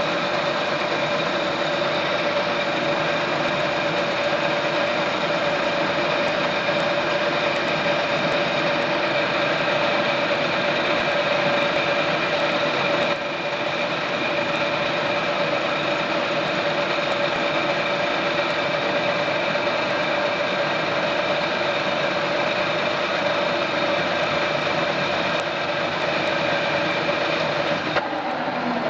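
Milling machine running continuously with a steady whine made of several held tones over a mechanical clatter, dipping slightly in level about halfway through.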